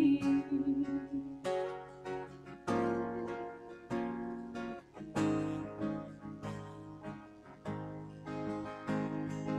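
Acoustic guitar strummed softly, one chord about every second and a bit, each chord ringing out and fading before the next.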